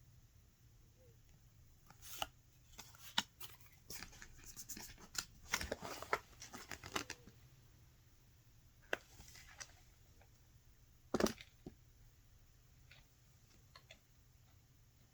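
Paper and card being handled and rustled, with scattered taps and clicks, busiest in the first half. A single sharp tap comes about eleven seconds in.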